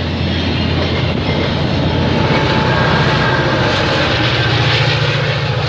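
VIA Rail passenger train, led by F40PH-2 diesel locomotives, rolling past close by: a steady, loud rumble of wheels on rail over a low drone, growing a little louder about halfway through.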